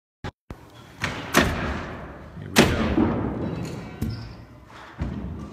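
Demolition work in a large hall: four heavy blows on wood about a second apart, the one near the middle the loudest, each ringing on in the room's long echo.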